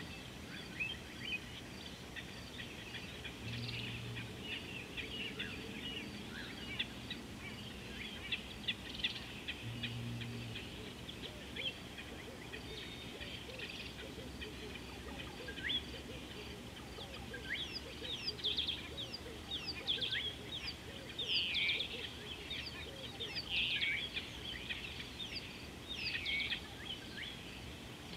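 Many birds chirping together, a chorus of quick, high, downward-sweeping calls that grows denser and louder in the second half. A faint low hum comes briefly twice, a few seconds in and about ten seconds in.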